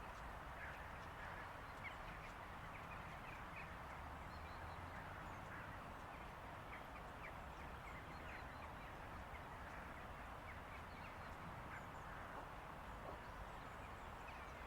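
Faint outdoor ambience: a steady hiss with many short, scattered bird chirps.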